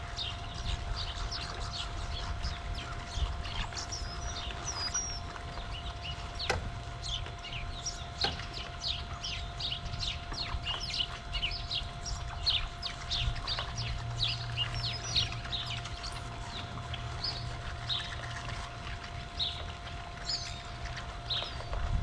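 A large flock of small songbirds chirping continuously, with many short calls overlapping. A faint steady hum runs underneath.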